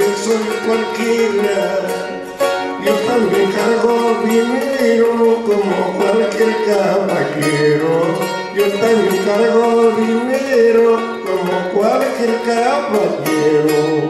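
Charango playing, its ten strings strummed and plucked, with a man singing a melody over it.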